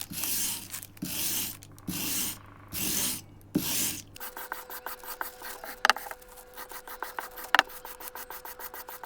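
A hand tool scraping in repeated rubbing strokes, about one stroke a second. About four seconds in, this gives way to a fast run of short scraping clicks over a faint steady tone, with two sharper clicks.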